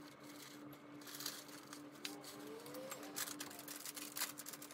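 Faint crinkling of a plastic bag of shredded cheddar being emptied and handled, with light irregular crackles as the shreds drop into a glass bowl. A slightly louder crinkle comes near the end.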